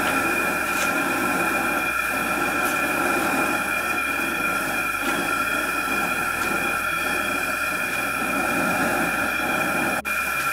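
Gas fish-fryer burner running steadily under a carbon steel wok of water, a constant rush of flame with a steady high-pitched whine over it. It breaks off for an instant near the end.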